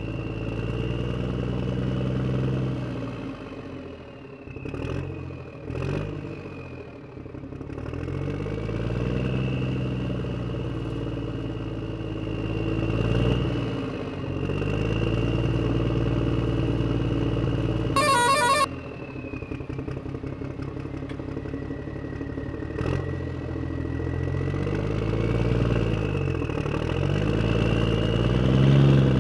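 A vehicle engine running and repeatedly revving up and dropping back, with a few sharp knocks and a brief harsh burst about eighteen seconds in.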